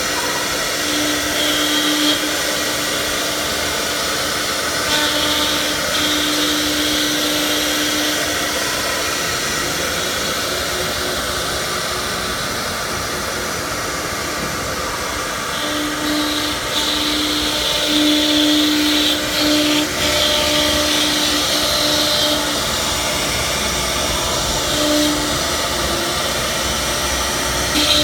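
Four-spindle CNC router running, its spindles cutting wood: a steady rushing machine noise with a pitched whine that fades in and out several times as the cut goes on.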